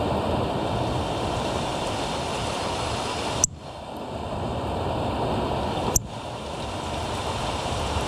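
Steady rushing outdoor background noise, heaviest in the low end, with no birdsong. It is broken by two sharp clicks, about three and a half and six seconds in, each followed by a brief dip in the noise.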